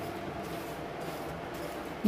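Freshly fried okra coated in gram flour and rice flour, stirred with a metal spoon on paper towel, giving a steady dry rustle. The sound shows how crisp the fry has turned out.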